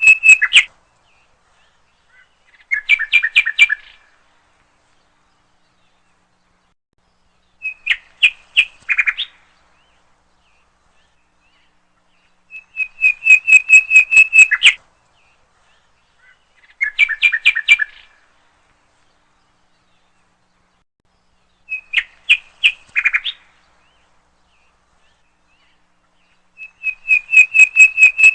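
A songbird singing short phrases of rapid repeated notes, each phrase ending in a quick flourish, about every four to five seconds with silence between. The phrases alternate between a single-pitched run and a two-pitched one.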